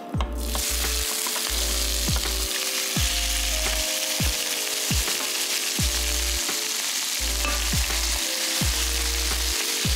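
Cubed raw pork belly hitting hot melted rock-sugar caramel in a pan: a loud, steady sizzle that starts suddenly about half a second in, as the pieces are tipped in and stirred around to brown without burning the sugar.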